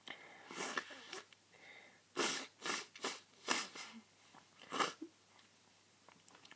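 A person with a cold, partway through a sneezing fit, taking a run of short, uneven, noisy breaths: about seven or eight quick puffs in the first five seconds, much softer than the sneezes.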